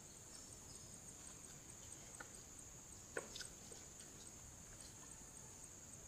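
Steady high-pitched trill of insects such as crickets, pulsing faintly and evenly, with a few short soft knocks about two and three seconds in.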